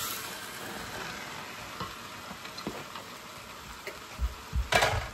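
Okra frying in hot oil in a pot, a steady sizzle with small pops, as it is stirred. A louder clatter near the end.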